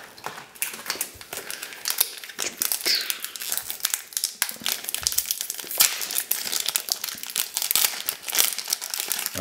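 Foil wrapper of a Pokémon card booster pack crinkling as it is handled and pulled open by hand, a dense, irregular crackle throughout.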